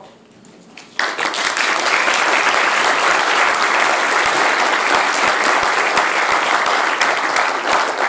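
Audience applauding at the end of a talk. The clapping starts suddenly about a second in and holds loud and steady.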